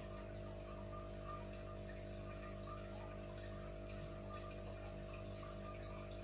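Aquarium filter running: a steady hum with faint trickling water.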